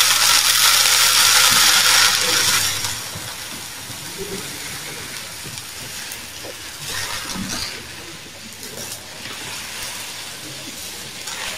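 Tofu (plant-fibre) cat litter pellets poured from a bag into a plastic litter tray, a rushing hiss that is loudest for the first three seconds, then goes on as a quieter, steady pour.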